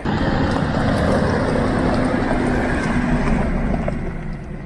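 Land Rover Discovery 3 with its TDV6 diesel engine driving on a gravel track: engine hum and tyre crunch, loud and steady, fading near the end.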